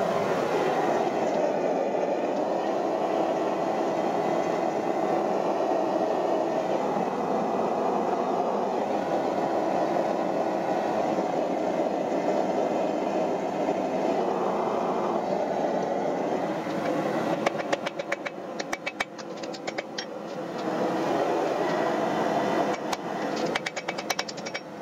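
A forge runs with a steady rushing noise. About 17 seconds in, and again near the end, a ball-peen hammer strikes a glowing axe head on the anvil in quick runs of blows.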